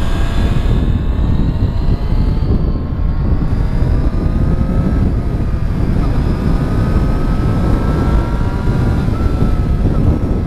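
Triumph Street Triple S 660 cc three-cylinder engine heard from the rider's helmet camera under way, its revs climbing, dipping once about six seconds in, then climbing again, under heavy rush of wind on the microphone.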